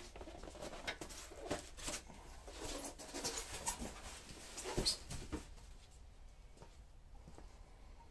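Polystyrene foam packing being pulled off a table saw: irregular squeaks, scrapes and knocks, busiest in the middle few seconds, with a sharper knock about five seconds in.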